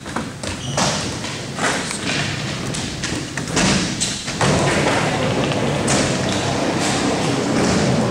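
Skateboard sounds on an indoor ramp: separate thumps and clacks of a board hitting the surface, then from about four and a half seconds in a steady rumble of wheels rolling, with a few more knocks.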